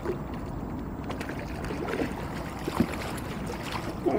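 A hooked fish being landed with a landing net: light splashing and water movement at the surface, with a few faint small clicks, over a steady hiss of wind and water.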